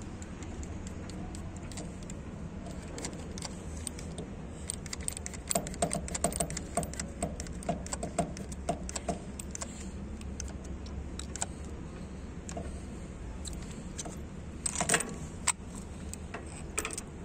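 Scattered light metallic clinks and jangles, thickest in the first half and again near the end, over a steady low hum.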